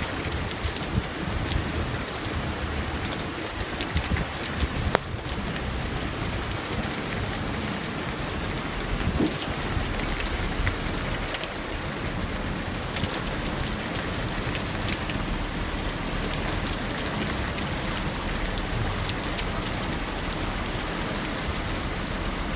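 Heavy rain falling steadily, with single drops clicking sharply close by and an uneven low rumble underneath.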